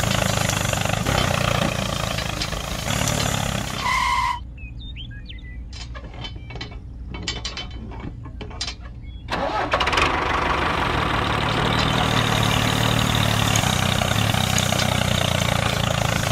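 Tractor engine sound running steadily, with a short beep just before it cuts off about four seconds in. A quieter stretch of light clicks and rattles follows as the model harrow is handled by hand. The engine sound comes back about ten seconds in and runs on.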